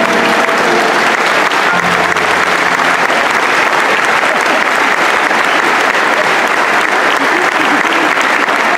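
Concert audience applauding, a steady dense clapping at the end of a song. A short low held tone sounds about two seconds in.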